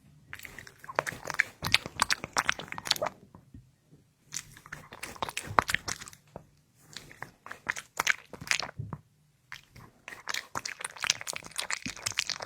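Dog eating, crunching and chewing its food in four bouts of rapid crunches with short pauses between.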